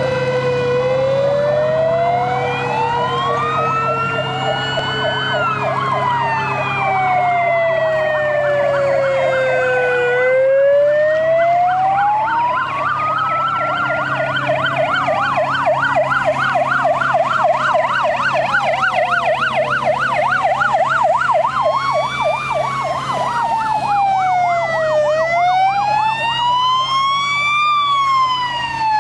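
Several fire engine sirens sound at once on emergency signals. A slow wail rises and falls every few seconds, overlaid by a fast yelp, with a steady low truck engine hum beneath.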